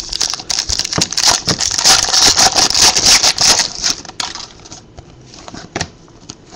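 A trading-card pack wrapper crinkling and rustling as it is torn open and handled, with many sharp clicks. After about four seconds it gives way to quieter clicks of cards being slid and flipped through.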